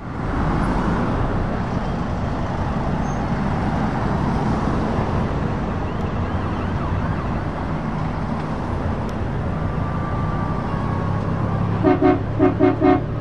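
Heavy trucks and cars driving past with steady engine and road noise. Near the end a horn gives a rapid series of short toots.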